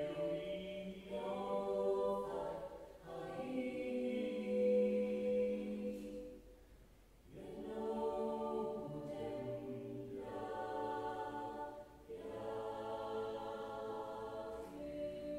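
Female vocal ensemble singing a slow song in long held chords, phrase by phrase with short breaks between, and a longer pause about seven seconds in. Near the end a single held note rings on.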